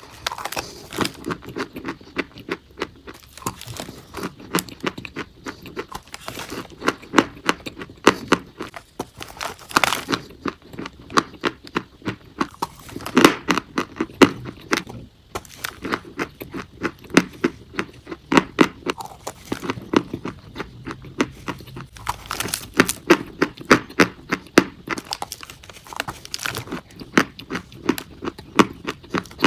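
Close-up chewing of chalk: a run of sharp, crisp crunches, a few a second, as the chalk is bitten and ground between the teeth.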